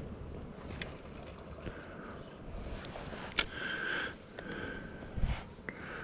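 Spinning reel being cranked in two short whirring spurts while a fish is reeled toward the kayak, with handling clicks, one sharp click just before the first spurt, and a low thump near the end.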